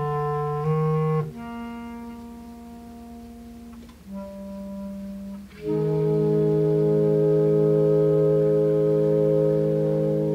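Clarinet choir of B-flat clarinets and a bass clarinet playing the close of a piece: a few moving notes, a softer passage of held notes, then a loud final chord from about halfway through, held and released at the very end.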